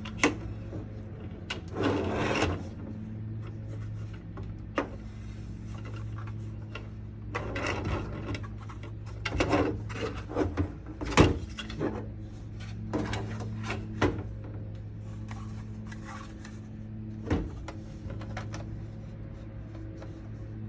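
Plastic diorama wall panels being handled and fitted together: scattered clicks and snaps with short spells of rubbing and scraping, the sharpest click about eleven seconds in, over a steady low hum.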